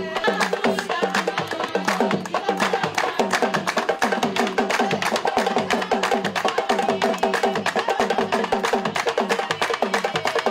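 A group of women singing together over fast, dense hand percussion with a sharp, woody click, a traditional West African dance song.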